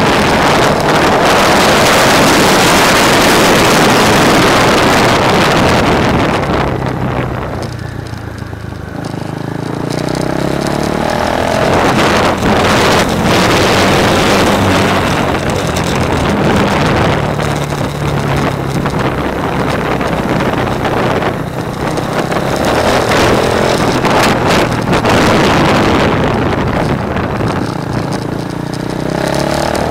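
Onboard a single-cylinder KTM Duke motorcycle at speed: heavy wind noise on the camera microphone over the engine. The wind eases about eight seconds in, and the engine is heard climbing in pitch as it accelerates out of a corner; near the end it revs up again under the wind.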